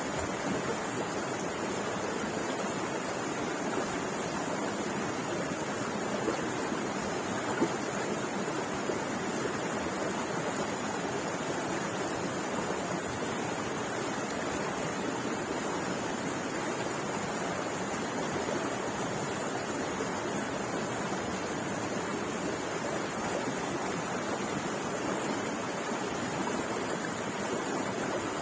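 A creek running high after heavy rain: a steady, unbroken rush of flowing water. A single short knock comes about seven and a half seconds in.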